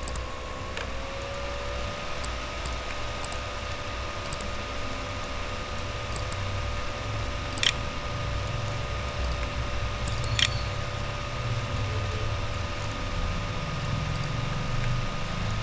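A computer mouse clicking, two sharp clicks a few seconds apart and a few fainter ticks, over a steady background hum with a low rumble and two steady whining tones.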